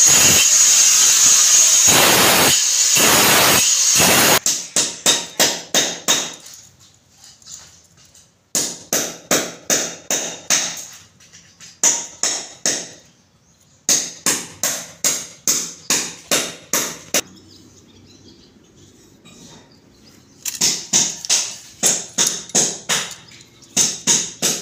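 Loud, harsh, steady scraping noise for about four seconds, then runs of quick, even knocks, about three to four a second, broken by short pauses.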